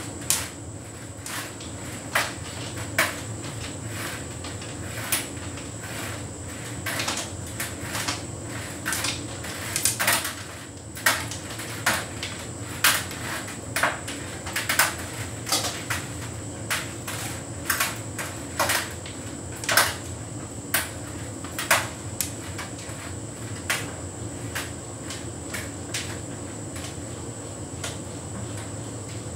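Hotpoint heat pump tumble dryer running with a steady hum and a thin high whine, while the load tumbling in the drum knocks against it, roughly once a second at irregular intervals.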